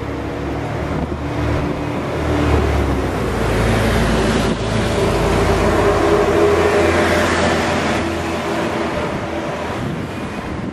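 City buses and cars driving past on a street: a low engine drone and tyre noise that swells to a peak mid-way, then eases.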